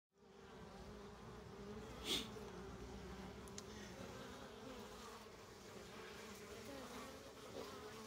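Honey bees buzzing around the hive entrance: a faint, steady, slightly wavering hum, with one short noise burst about two seconds in.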